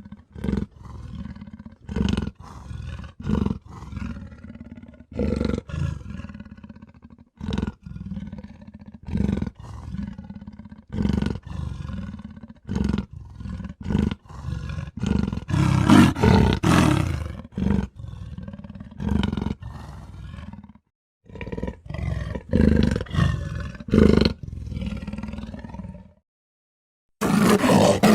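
A rapid string of short roar-like sound-effect clips, cut one after another with abrupt starts and stops, and a second-long gap near the end.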